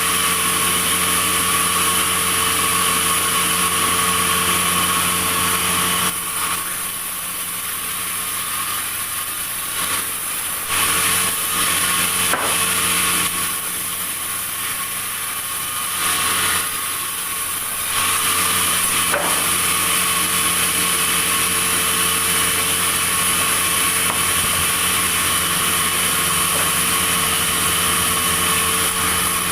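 Sawmill saw running steadily. Its level drops back a little for a few seconds at a time, about a fifth of the way in and again around the middle.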